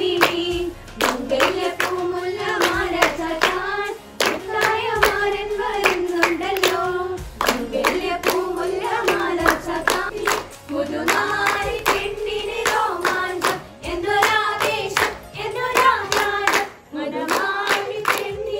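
A group singing a mehndi-night wedding song in phrases, keeping time with rhythmic hand clapping.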